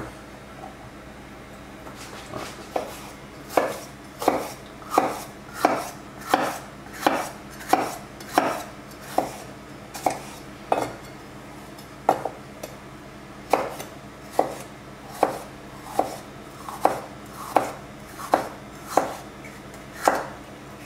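Large kitchen knife slicing and dicing a yellow bell pepper on a bamboo cutting board: sharp, regular strikes of the blade on the wood, about two a second, starting a couple of seconds in.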